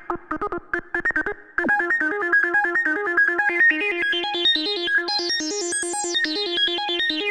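Kassutronics VCO 3340 analog Eurorack oscillator playing a sequenced synth line. A few sparse, clicky notes give way, about a second and a half in, to a fast, even stream of short notes hopping among a few pitches. The tone grows steadily brighter to a peak about six seconds in, then darkens again.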